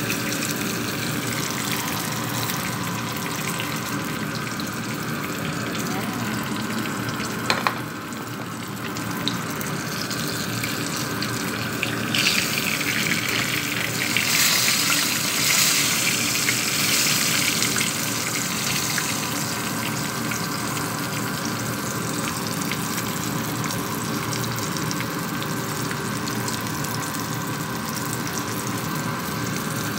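Whole tilapia shallow-frying in oil in a pan, with a steady sizzle. About halfway through, the sizzle grows louder and brighter for several seconds as a fish is turned with tongs. A brief sharp clack comes a few seconds before that.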